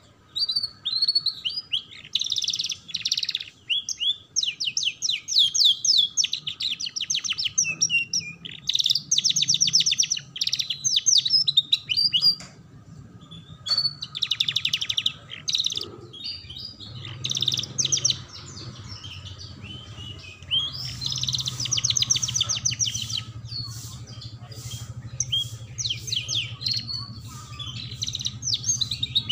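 Domestic canary singing: long runs of rapid trills and chirps with short pauses between phrases.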